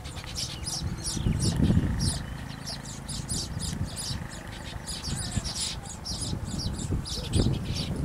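Weaverbirds chirping at their hanging woven nests: a dense run of short, high chirps, several a second, from more than one bird, over a low rumble on the microphone.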